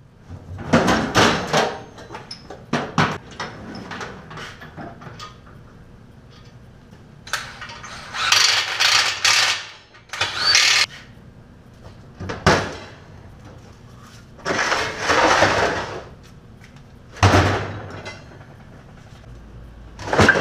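Intermittent bursts of workshop tool noise on a bare small-block Chevy engine block, about eight short spells of a second or two with pauses between.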